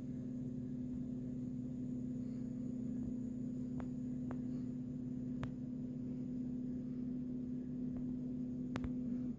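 3D printer running: a steady motor hum held on one tone, with a few faint clicks. The hum stops just before the end.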